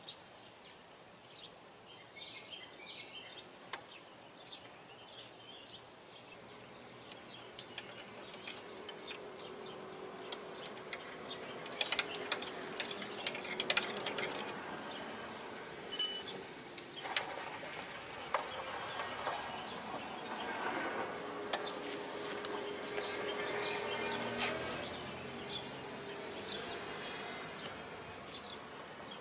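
Small clicks and clinks of metal motorcycle brake parts being handled and fitted by hand, with one sharper ringing metallic clink about halfway through. A faint steady hum comes and goes in the background.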